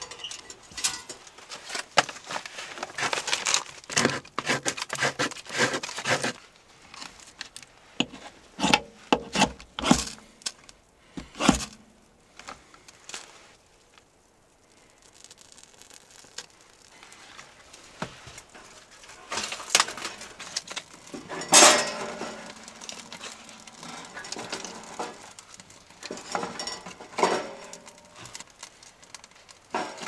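Objects being handled: an irregular run of clinks, knocks and rustling. It goes quieter for a few seconds about halfway through, with a sharp knock a little after.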